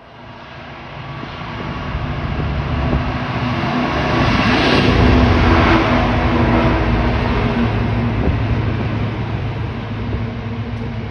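A Freightliner diesel locomotive passes close by at the head of a long freight train, its engine hum and the rumble of wheels on rail building to a peak about five seconds in. The wagons then keep rolling past.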